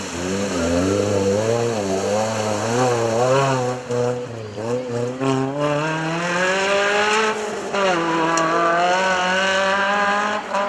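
Off-road race vehicle's engine revving hard under load, its pitch jumping up and down several times a second as the throttle is worked, then climbing steadily for about two seconds, dropping sharply and climbing again near the end.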